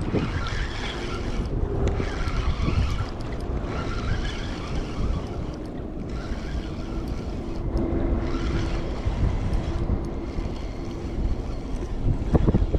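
Wind buffeting the microphone at the waterside, with a faint steady hum through most of it and a stronger gust near the end.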